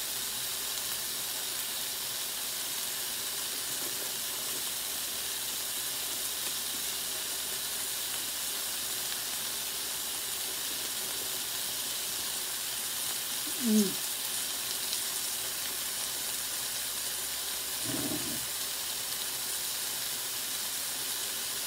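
Steady sizzle of food cooking on an electric soup-and-grill cooker. About fourteen seconds in comes a short vocal sound falling in pitch, and a brief low murmur follows near eighteen seconds.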